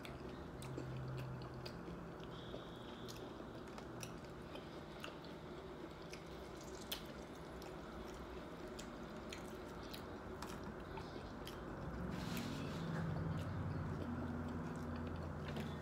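A person chewing a taco close to the microphone: scattered crisp clicks and wet mouth sounds from biting and chewing, a little louder near the end.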